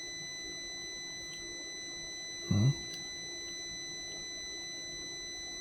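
A multimeter's continuity buzzer sounding one steady high beep, the sign of a closed circuit between the relay pins being probed.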